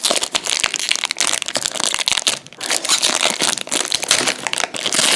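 Crinkling and crackling of a 2016-17 Upper Deck MVP hockey card pack's plastic wrapper as fingers pick and tear it open, with a brief pause about halfway through.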